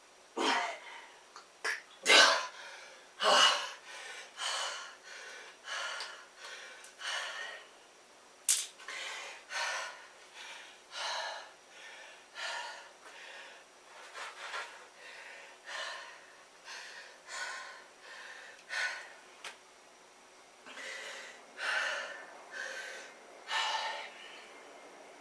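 A man breathing hard after exertion, heavy breaths in and out about once a second, with a few loud, sharp gasping breaths in the first few seconds: recovery from a set of push-ups. A brief click about eight and a half seconds in.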